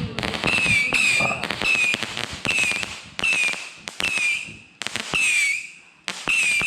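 A fireworks cake firing a rapid, regular run of whistling shots, about one and a half a second: each a sharp pop followed by a short whistle that dips slightly in pitch, with crackle.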